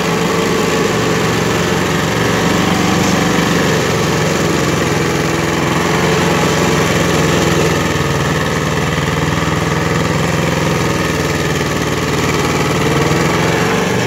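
Predator stump grinder running steadily, its engine loud and even while the cutter wheel grinds into a large sequoia stump.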